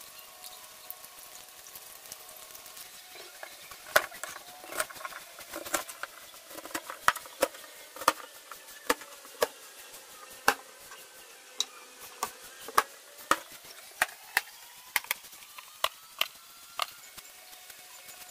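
Kitchen knife slicing peeled taro on a plastic cutting board: a run of sharp taps as the blade strikes the board, irregular, roughly two a second, starting about four seconds in.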